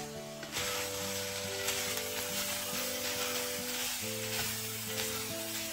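Food frying in a hot pan: a steady sizzle that starts suddenly about half a second in, over background music.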